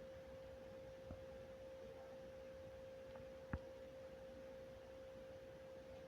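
Faint, steady single-pitched electronic tone, a mid-high hum, with a short click about three and a half seconds in.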